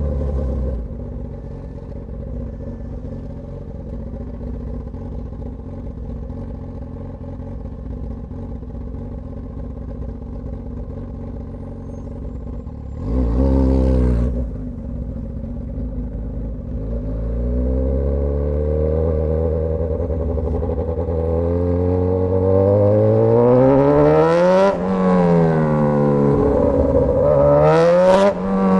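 Straight-piped Suzuki GSX-S1000 inline-four running steadily at low revs, with one quick throttle blip about halfway through. It then pulls away hard, revs climbing to a sudden drop at an upshift near the end, then climbing again to a second shift.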